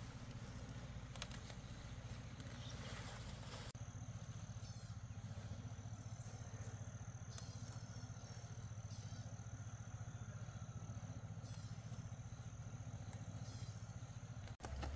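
Outdoor rural ambience: a steady low rumble under a thin, steady high-pitched tone, with scattered faint clicks and taps.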